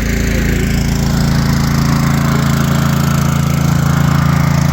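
Small engine-driven water pump running steadily at a constant speed while pumping water out of a sunken narrowboat.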